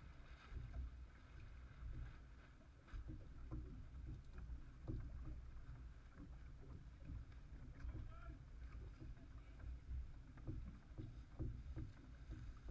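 Water lapping and splashing against a small boat's hull, with a low wind rumble on the microphone and irregular small knocks.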